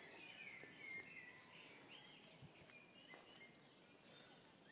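Near silence: faint woodland ambience with a few distant bird chirps.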